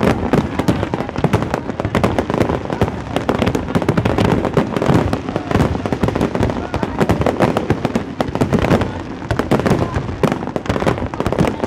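Aerial firework shells bursting in a dense, unbroken barrage: many rapid bangs and crackles overlapping, with no let-up.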